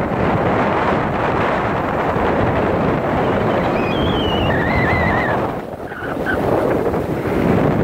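Strong hurricane wind buffeting the microphone over heavy surf breaking and washing up the beach. The wind eases briefly about six seconds in.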